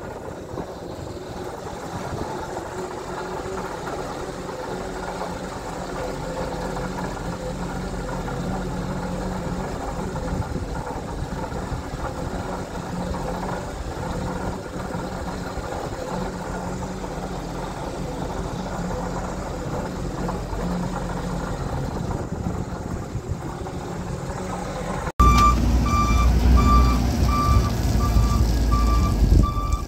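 Case 721F wheel loader's diesel engine running steadily. About 25 seconds in the sound jumps louder, and the loader's reversing alarm beeps over the engine.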